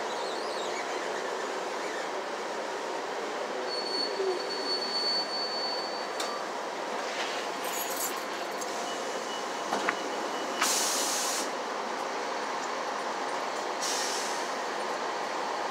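Interior ride noise of a city transit bus, a steady hum and rumble, with a thin high whine a few seconds in and two short hisses, the first about ten seconds in and the second near the end.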